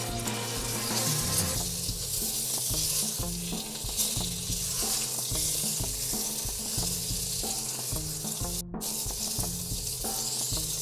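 Roasted pumpkin and garlic sizzling in olive oil in a stainless steel pot, stirred and scraped with a silicone spatula, over soft background music.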